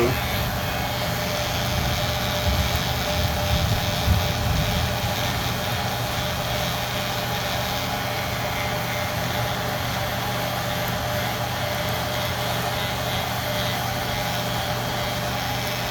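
Electric hair clipper with a freshly sharpened blade running steadily as it is tried out on hair, with a few low knocks of handling in the first seconds.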